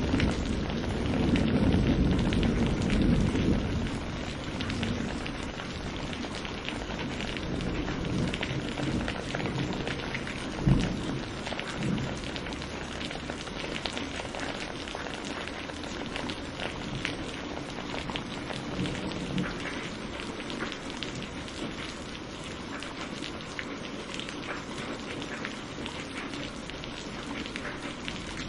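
Steady rain falling on a surface, with many fine drips, and a low thunder rumble in the first few seconds that dies away. A single sharp knock cuts through the rain about eleven seconds in.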